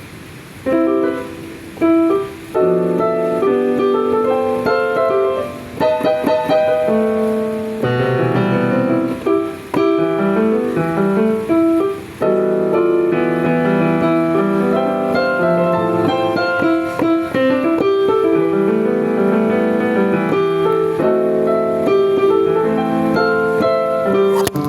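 Korg LP-380 digital piano played solo: melody over chords, starting a little under a second in, with brief pauses between phrases.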